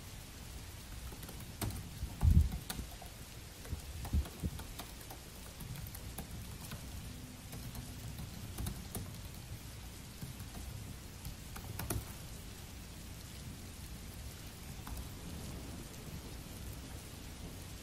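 Steady rain, with light, irregular clicks of typing on a Dell laptop's keyboard. Two low thumps, about two and four seconds in, are the loudest sounds.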